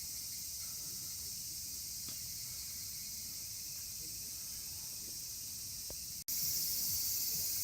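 Steady, high-pitched chorus of summer insects chirring. It drops out for an instant about six seconds in, then returns louder.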